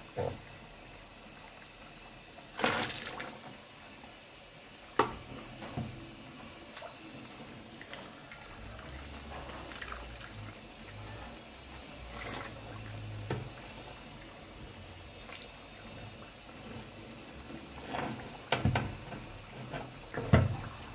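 Hot melted beeswax and water in a metal pot, dripping and sloshing as a ladle lifts set lumps of wax out and lowers them back, with a few sharp knocks of the ladle, louder about three and five seconds in and several times near the end.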